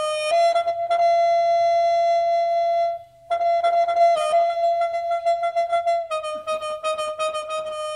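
Electronic keyboard music: a single high note repeated rapidly, then held, then repeated rapidly again, with a short break about three seconds in.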